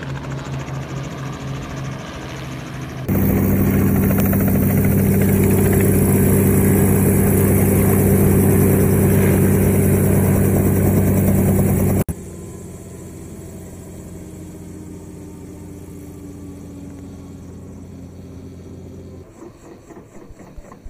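Light helicopter's engine and rotor running close by with a steady drone. It gets much louder about three seconds in, drops suddenly about twelve seconds in, and stops a couple of seconds before the end.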